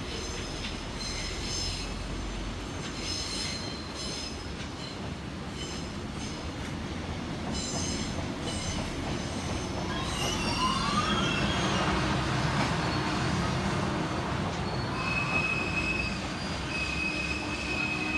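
A JR Freight EH200 electric locomotive and its container wagons running slowly into a station. Wheels give off high squeals on and off, a rising whine sounds about ten seconds in as the locomotive draws close, and a steady high-pitched wheel squeal holds near the end over the rumble of the passing wagons.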